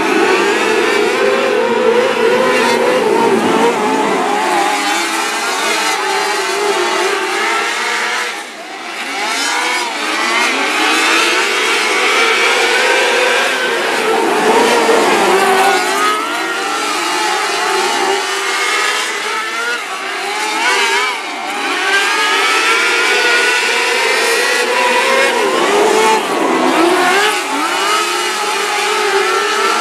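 A pack of small open-wheel dirt-track race cars at racing speed. Several engines run at once, their pitch rising and falling as they accelerate and lift, with a brief dip about eight seconds in.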